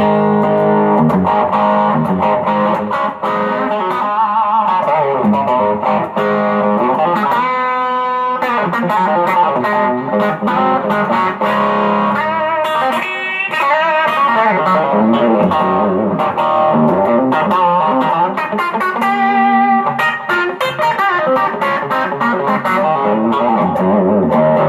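M-Musi Virgo Fusion electric guitar with its pickups in humbucker mode, played continuously through a Quilter Superblock US amp and pedalboard. It is an unbroken run of notes and chords, with the pitch wavering on held notes a few times.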